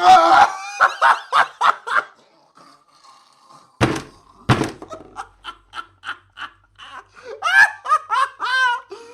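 Laughter sound effect: a burst of rapid belly laughter, then two sharp thuds about four seconds in. Quick short chuckles follow and build into high-pitched laughter near the end.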